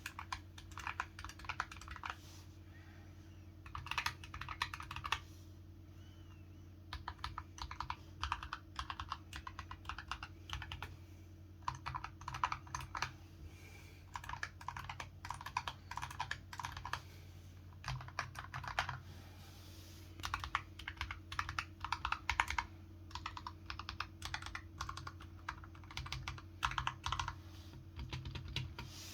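Computer keyboard being typed on in quick flurries of key clicks, each a second or two long with short pauses between, over a steady low hum.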